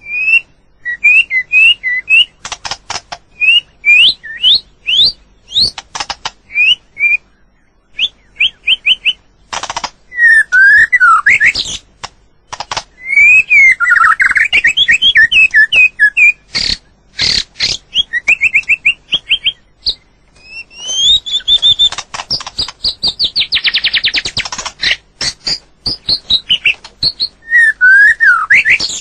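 White-rumped shama singing: a varied run of short rising and falling whistled phrases mixed with sharp clicks, with a fast trill of rapidly repeated notes in the second half.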